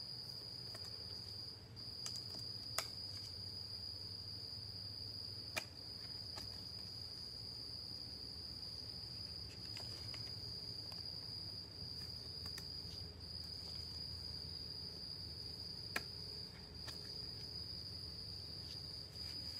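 A cricket chirping indoors as a steady, high-pitched trill that breaks off briefly a few times. There are a few faint clicks of trading cards being handled.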